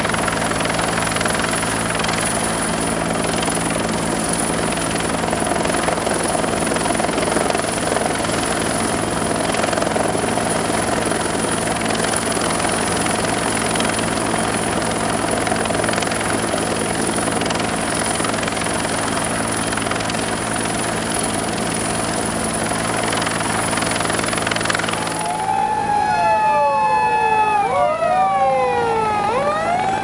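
Disaster-management helicopter hovering overhead: a steady rotor and turbine noise with a high, constant turbine whine. About 25 seconds in it cuts to several emergency-vehicle sirens wailing at once, their rising and falling tones crossing one another.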